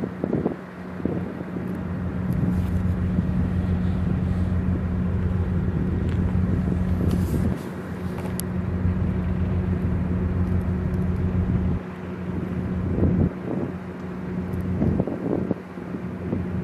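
A steady low machinery hum holding a constant drone, with wind buffeting the microphone in uneven gusts.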